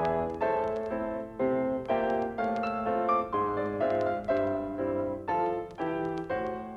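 Solo piano accompaniment for a silent film, playing struck chords that change about once a second.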